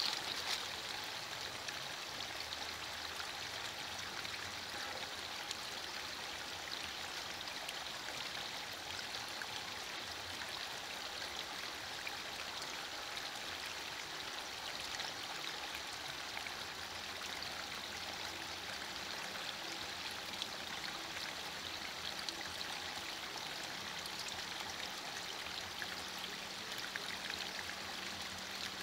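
Light rain falling: a steady, even hiss of water with fine patter of drops.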